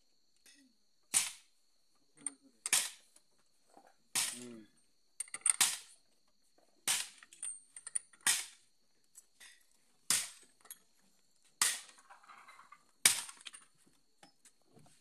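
Sharp knocks and taps from tools and parts being handled during reassembly of a Maruti 800 engine. There are about a dozen, spaced a second or so apart, each ringing briefly.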